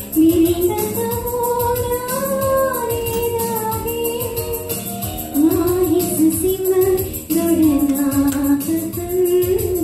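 A woman singing a Sinhala song into a microphone over a recorded backing track, her melody moving in held, gliding notes above a steady beat.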